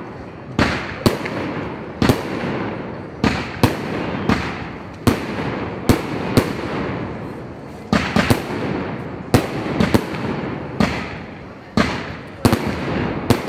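Aerial fireworks shells bursting overhead in an irregular run of sharp bangs, a little more than one a second. Each bang trails off in a fading echo before the next.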